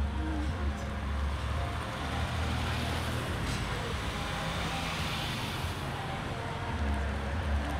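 Cars driving slowly past one after another, with a low engine rumble and tyre noise: a Porsche 911, then a Subaru WRX that passes close and loudest about halfway, then a Bentley Continental GT convertible.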